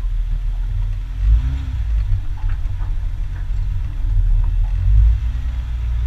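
Jeep engine running at low revs as it crawls over a rocky trail, a steady low rumble with a few faint knocks and ticks.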